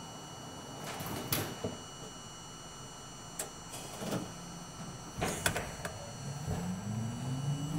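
R42 subway car standing at a platform, heard from inside the front car: a few scattered clunks and knocks. About six seconds in, its traction motors start a steadily rising whine as the train starts off.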